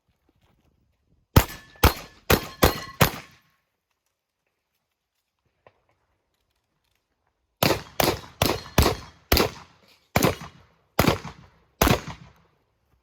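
Beretta 1301 Comp Pro semi-automatic 12-gauge shotgun firing two rapid strings: five shots in quick succession, then after a pause of about four seconds another eight, the first few fast and the last ones slower.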